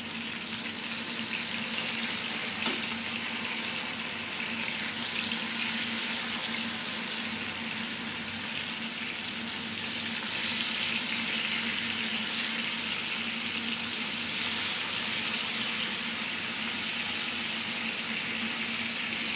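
Chicken breasts pan-frying in hot oil in a skillet, a steady sizzle, with a few light clicks of a fork against the pan as the pieces are turned.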